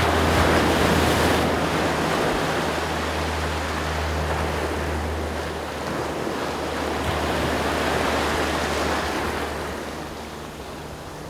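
Ocean surf washing and breaking around a wader, swelling and easing, with a low steady rumble underneath.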